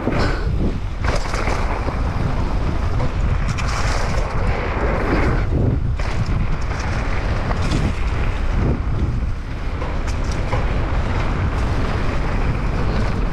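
Wind buffeting the microphone of a mountain bike's action camera at riding speed, a heavy steady rumble, over the crunch and rattle of knobby tyres rolling down a dirt trail with scattered knocks from bumps.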